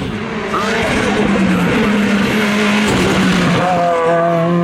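Race car engine running hard on a hill-climb course, with tyre noise through the middle; about three and a half seconds in, the engine note climbs as the car accelerates.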